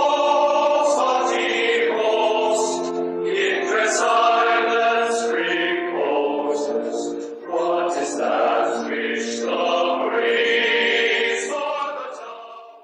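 A choir singing a slow song in long held notes, fading out near the end.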